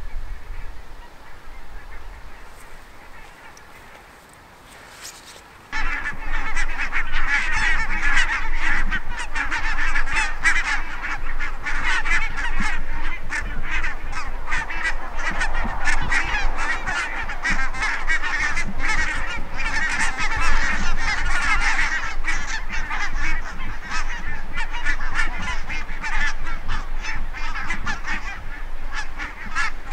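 A flock of geese flying overhead, many birds honking at once in a dense, continuous clamour. It starts suddenly about six seconds in, after a few quieter seconds.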